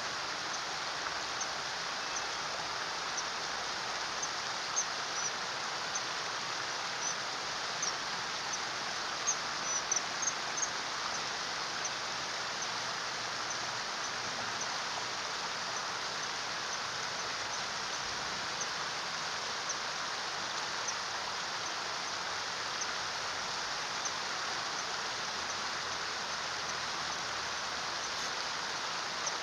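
Steady rushing of stream water, with short, thin, high-pitched calls of common kingfishers repeated many times. The calls come in a busy run from about four to eleven seconds in, then only now and then.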